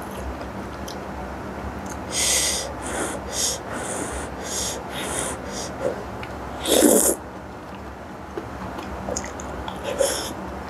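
Soupy noodles being slurped off a fork: a run of short hissing slurps about two seconds in, one louder slurp near the middle, then chewing with sharp breaths through pursed lips near the end.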